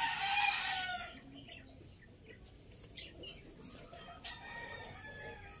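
A chicken squawks loudly once for about a second, followed by faint scattered clicks and a single sharp knock about four seconds in.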